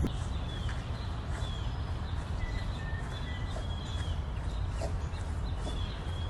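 Outdoor background with a steady low rumble and small birds chirping, short high chirps repeating through it.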